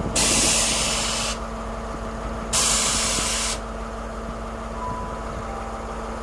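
Compressed air venting from a train's air system in two sharp hisses, each about a second long and each cutting off suddenly, about a second apart, over a steady low engine hum.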